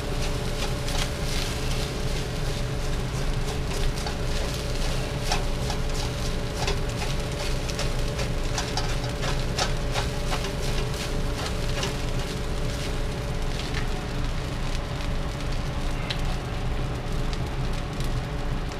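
Rice frying in a hot stainless steel wok, sizzling steadily while it is stirred and turned with a wooden spatula, with frequent short scrapes and taps of the spatula against the pan.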